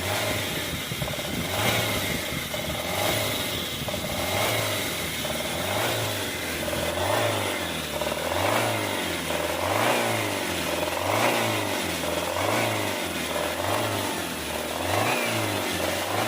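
Hyundai Sonata DN8 2.5-litre four-cylinder engine revved in repeated short blips, about one every second and a bit, while its rattling noise is being diagnosed.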